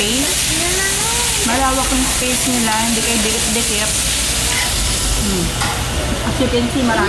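Meat sizzling steadily on a tabletop Korean barbecue grill plate as it is turned with tongs, with a woman's voice talking over it.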